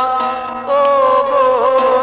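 A man's voice singing a Sindhi Sufi song, holding long notes that waver and bend, over a steady instrumental drone.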